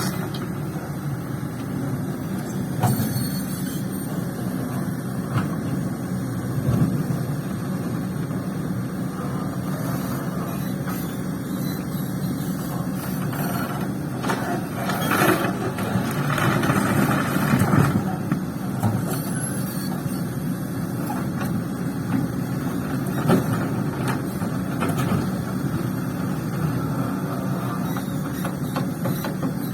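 Hydraulic excavator's diesel engine running steadily under working load, swelling louder about halfway through, with a few scattered knocks.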